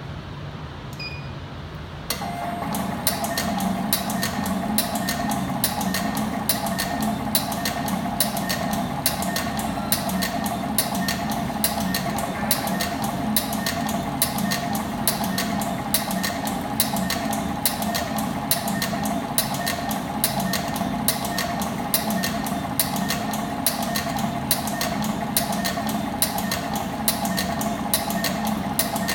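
HR-220 computerized wire stripping machine starting up about two seconds in, then running steadily: a motor hum with a fast, regular clicking as it feeds, cuts and strips lengths of wire.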